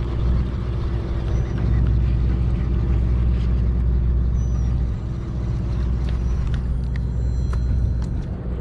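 A fishing boat's engine running steadily, a low even drone. A few faint light clicks sound over it now and then.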